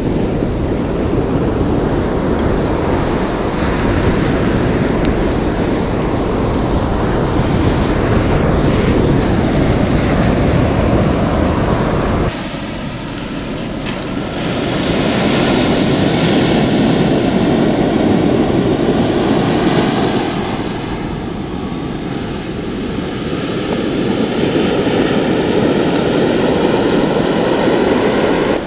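Ocean surf breaking and washing up the beach, with wind buffeting the microphone. The low wind rumble drops off suddenly about twelve seconds in, after which the waves are heard rising and falling in surges.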